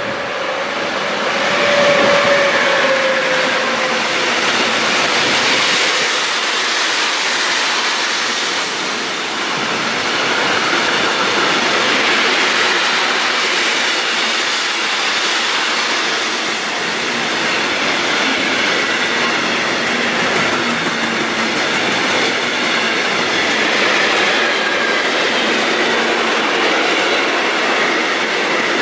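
Fast, heavy container train passing close by on an electrified main line. The electric locomotive goes by with a tone that drops slightly in pitch about two seconds in. Then comes a long, steady rolling rush of container flat wagons' wheels on the rails.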